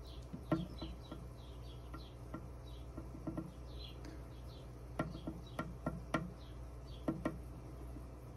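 Faint high chirps repeating a few times a second over a low steady hum, with a handful of sharp clicks and taps. The loudest click comes about half a second in, and a cluster follows between five and seven and a half seconds in.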